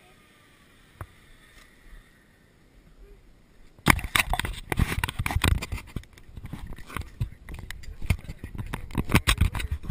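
Handling noise on a helmet-mounted action camera's microphone: a single click about a second in, then from about four seconds in a sudden, continuous run of rubbing, knocking and scraping as the camera and helmet are moved about.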